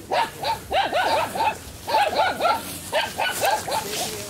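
An animal calling in quick runs of short calls that fall in pitch, several a second, with brief pauses between the runs.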